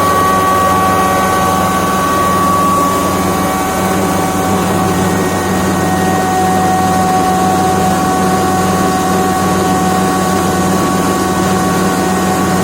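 Electric grinding mill running steadily at full speed: a steady motor whine of several high tones over a low electrical hum and grinding noise.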